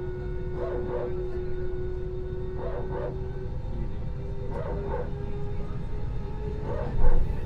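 Airbus A320 cabin with a steady low drone and humming tones, broken about every two seconds by a short pitched double squeal that repeats four times: the weird noise heard throughout the flight. A louder sudden noise comes near the end.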